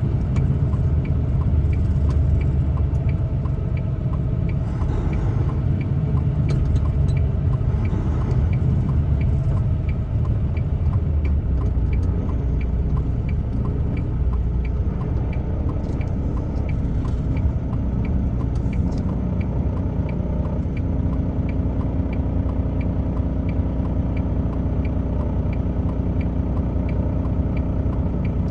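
Steady engine and road rumble inside a moving truck's cab, with a faint indicator clicking evenly about one and a half times a second throughout.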